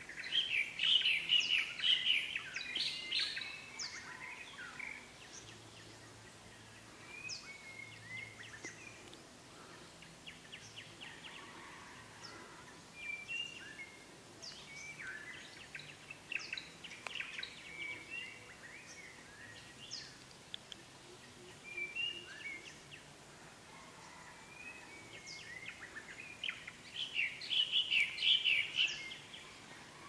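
A dawn chorus of several wild birds singing and calling together, with many short chirps and whistles overlapping. It is busiest and loudest in the first few seconds and again near the end.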